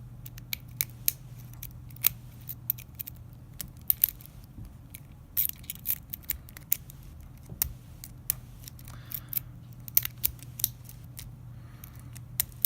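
Bogota rake pick raking the pins of a Master Lock 140 padlock: irregular sharp metal clicks and scrapes, some in quick runs, over a steady low hum.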